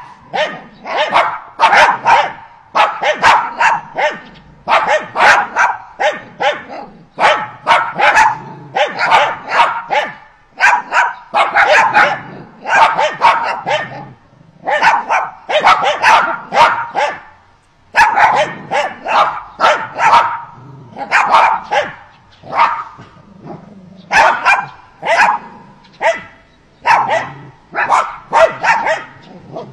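A dog barking over and over, in quick runs of several barks with short pauses between runs.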